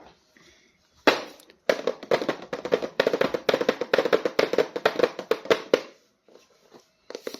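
Plastic toy packaging being crinkled and handled: a sharp crackle about a second in, then about four seconds of rapid, dense crackling that stops suddenly near the end.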